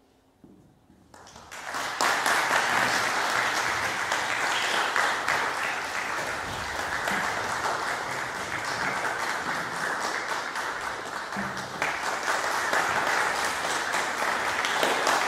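Audience applause that starts about a second in, builds quickly and then carries on steadily.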